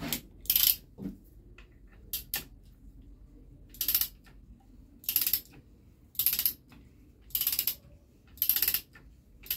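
Hand ratchet with a 19 mm socket clicking in short bursts about once a second as the crankshaft bearing cap bolts are run down snug, not yet torqued.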